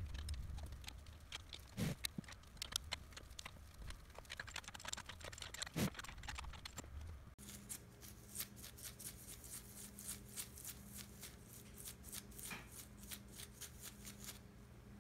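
Faint rapid ticking and scraping of a small brush worked over the teeth of a CNC router's rack-and-pinion drive pinion, cleaning it to check its wear. Two louder handling knocks come in the first half, and a faint steady hum runs under the ticking in the second half.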